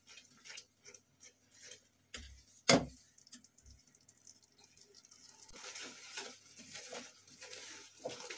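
A thick, hot jaggery-and-khoya mixture is stirred with a silicone spatula in a nonstick kadhai. There are soft ticks and pops a few times a second, one sharp knock a little under three seconds in, and a soft stirring noise with scattered clicks in the last few seconds.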